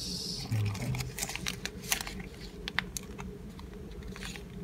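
Paper sugar and tea sachets rustling as a hand sorts through them in a small caddy: a string of light, irregular clicks and crinkles.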